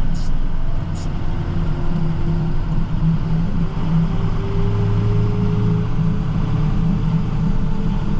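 Snowplow truck's engine running as it drives: a low, steady drone with a faint tone that rises slightly in pitch through the middle. Two light clicks come about a second apart near the start.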